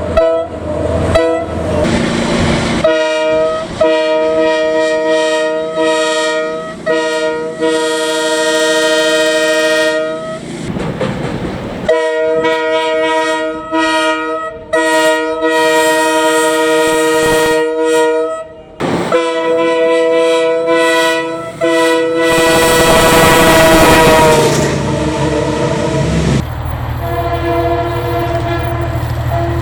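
Train air horns sounding a series of blasts, each a steady multi-note chord: a few quick toots at first, then long held blasts with short gaps. Between the blasts come the rumble and wheel noise of passing trains.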